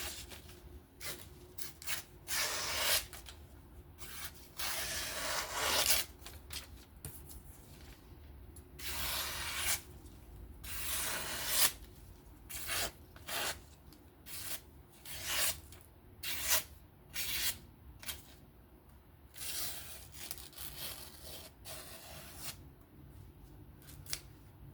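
M390 steel knife blade of a Benchmade Bugout being drawn in a series of irregular strokes, a dry rubbing, scraping sound. Some strokes are short and a few last about a second.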